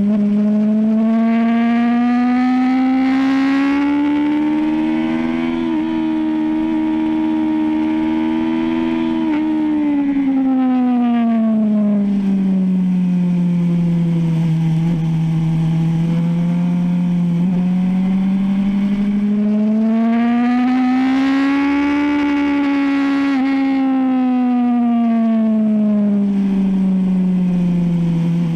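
BMW S1000RR sportbike's inline-four engine running under load on track, heard from on board. Its pitch climbs over the first few seconds, holds, falls slowly to a low, climbs again about 20 seconds in and falls away near the end, with small jumps along the way.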